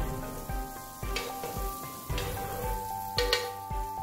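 Butter sizzling as it melts in a hot nonstick frying pan while a spatula spreads it around, with a few sharp strokes about once a second, the loudest near the end.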